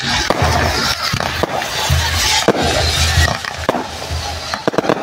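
Fireworks burning on a pyrotechnic bull frame: a steady hiss of spark fountains and spinners with several sharp bangs, a quick cluster of them near the end. Music with a low, pulsing beat runs underneath.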